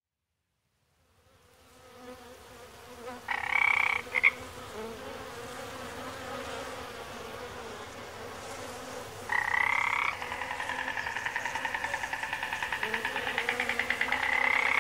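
Frogs calling: two short loud croaks about three and nine seconds in, then a fast pulsing chorus of croaks from about ten seconds on. A faint steady low hum lies underneath, and the sound fades in at the start.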